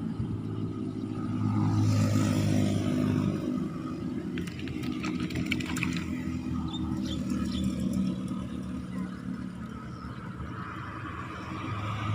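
Motor vehicles, including motorcycles, passing on the road with engines running. The sound swells about two seconds in and again later before fading, with a few light clicks in between.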